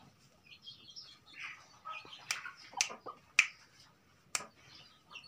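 Four sharp clicks or snaps come about half a second to a second apart, starting about two seconds in, the third the loudest. Soft, faint chicken sounds come before and between them.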